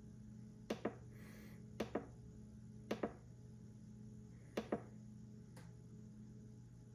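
The push button for the VTOMAN FlashSpeed 1500 power station's built-in flashlight is pressed five times, roughly a second apart, cycling the light through its settings. Most presses are a quick double click, press and release. A faint steady low hum runs underneath.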